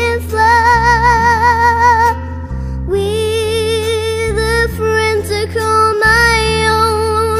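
Slow ballad playing, a voice holding long notes with vibrato over a steady bass line.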